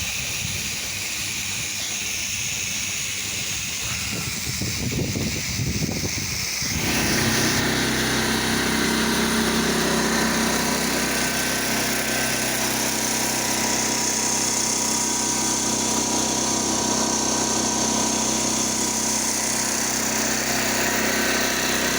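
Gas-engine pressure washer running steadily. For the first several seconds there is mostly a hissing spray; about seven seconds in the engine's steady hum comes in louder and stays.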